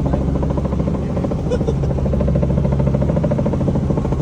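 Helicopter in flight heard from inside the cabin: a steady, loud engine-and-rotor drone with a fast, even blade chop.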